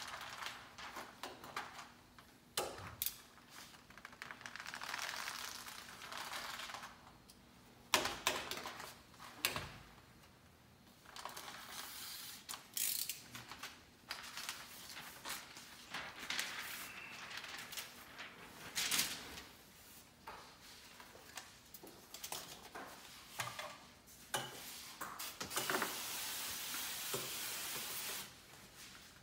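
Scraping, tapping and clatter of hand tools worked along the bottom edge of a glass door and its metal track, with a steady hiss lasting about three seconds near the end.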